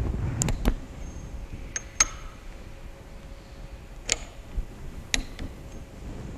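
Torque wrench working the end-cap tool nuts of a waterjet intensifier's high-pressure cylinder up to 50 foot-pounds: about six sharp metallic clicks with a short ringing, two close together near the start, a pair about two seconds in, and single clicks around four and five seconds, over low handling rumble.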